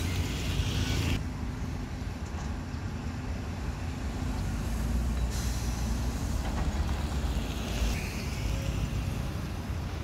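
Heavy diesel engines running with a steady low rumble: a tracked excavator working and a concrete mixer truck driving along the road, with passing traffic. The higher hiss drops out abruptly about a second in and comes back around five seconds in.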